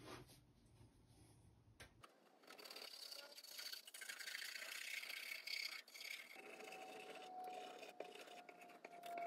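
Faint scratching and rubbing as glue is squeezed from a plastic bottle and worked onto an oak mitre joint, starting about two seconds in. A faint steady tone joins about six seconds in.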